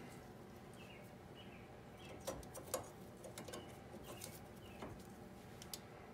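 Faint, occasional light metal clicks as brake pads are handled and seated in a rear disc brake caliper bracket, the clearest two a little past two seconds in, over a background of faint short chirps.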